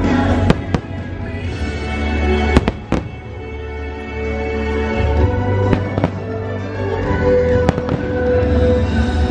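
Aerial fireworks bursting with sharp bangs, about seven in all, several in quick pairs, the loudest about two and a half seconds in, over show music playing loudly throughout.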